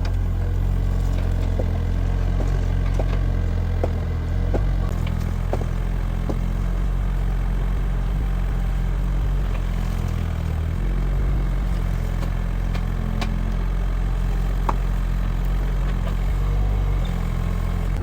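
An engine running steadily with a low rumble, with scattered light knocks and clicks over it.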